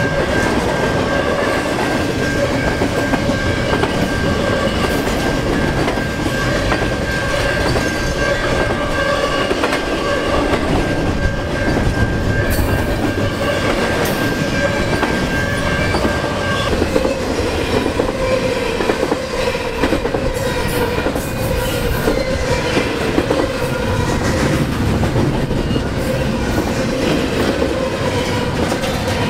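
CN double-stack intermodal freight train rolling past close by, its well cars making a steady loud rolling noise on the rails. A thin high-pitched tone rides over it and stops a little past halfway, while a lower steady tone continues.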